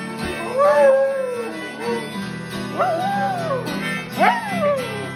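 A dog howling along to acoustic guitar music: three long howls, each rising and then falling in pitch.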